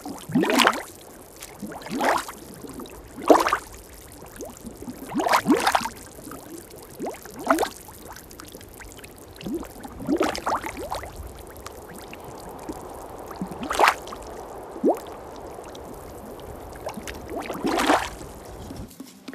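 Wet potter's clay squelching and sucking as hands and bare feet knead and tread it, in irregular wet squelches every second or two.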